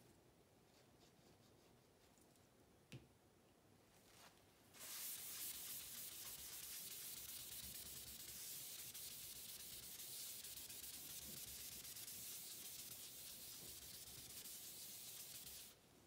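A tissue rubbed over a sheet of synthetic paper, wiping it down: a steady, dry, high hiss that starts about five seconds in and stops abruptly just before the end, after a small tap about three seconds in.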